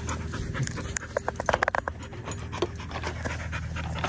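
A dog panting close by, with scattered clicks and clatter of plastic toys being handled.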